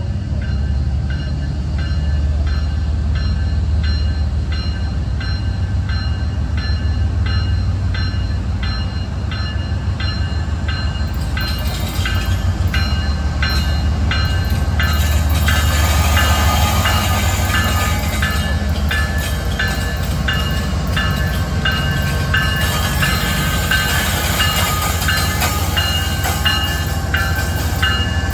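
CSX diesel locomotive running with a steady low engine hum as it moves past slowly. Over it, a short high-pitched squeal repeats about twice a second: the strange noise the locomotive makes at a crawl.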